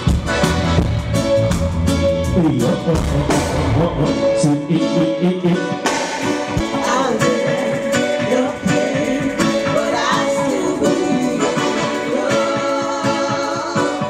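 Reggae band playing live with female backing singers singing harmonies. The bass drops out about four seconds in, and the voices come through over keyboard and guitar.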